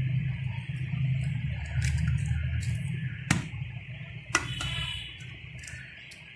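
An egg tapped on the rim of a steel pot and cracked into mashed kabab mixture: a few sharp taps, the loudest about three seconds in, over a steady low hum.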